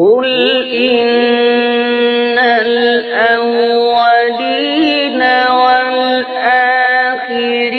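Quran recitation in melodic tajweed style: a single voice chanting a verse that opens with "Qul", drawn out in long held, ornamented notes, with the pitch rising briefly about halfway through.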